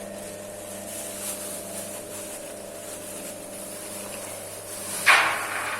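A peanut coating-pan machine's electric motor and rotating drum running with a steady hum. About five seconds in, a sudden loud rushing hiss flares up and dies away within half a second.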